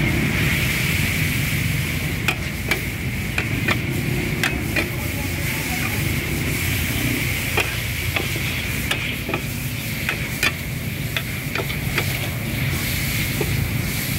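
A metal ladle scrapes and clanks against an aluminium wok as greens are stir-fried, with irregular sharp knocks about once or twice a second. Underneath is a steady frying sizzle and a low, steady rumble.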